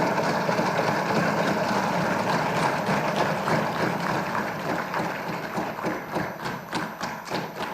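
Members of a legislative assembly greeting a member with a dense clatter of desk-thumping and clapping, over a crowd din. The separate knocks grow more distinct toward the end.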